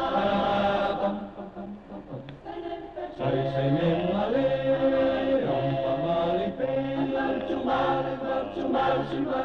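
A choir singing a slow, chant-like song with long held notes, softer for a couple of seconds about a second in.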